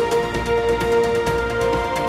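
News programme theme music: held synth chords over a steady beat.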